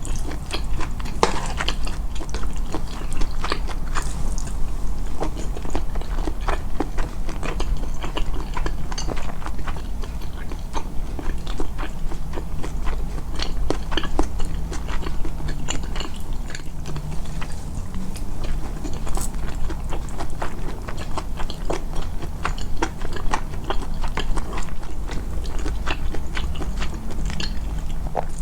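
Close-miked chewing, amplified: a steady run of small wet clicks and crunches as a mouthful of food is chewed, over a constant low rumble.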